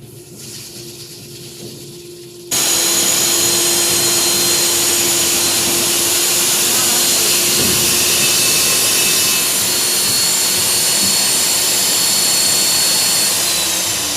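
Electric concrete core drilling machine running with a steady motor hum and whine. About two and a half seconds in it turns abruptly much louder as the diamond core bit grinds through the concrete slab. Near the end the motor's whine starts to fall in pitch.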